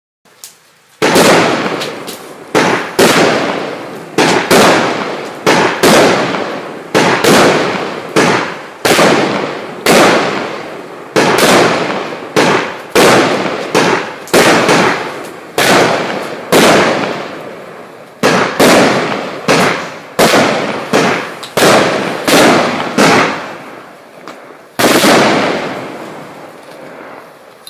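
Celtic Fireworks 'Disco Balls' 19-shot barrage cake firing: a rapid run of sharp bangs, about one to two a second, each trailing off before the next. The final shot comes near the end, and its sound fades away after it.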